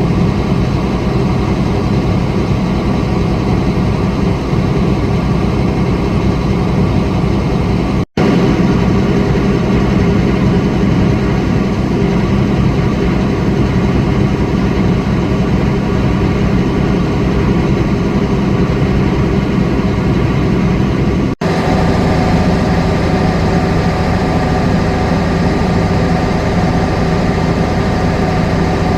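Heavy farm diesel engine running steadily under load, with two brief dropouts where the footage is cut; after the second cut the engine note is slightly different.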